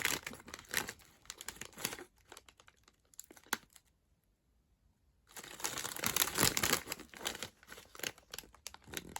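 Plastic snack packet crinkling as it is handled. It comes in two spells with a near-quiet pause of about three seconds between them.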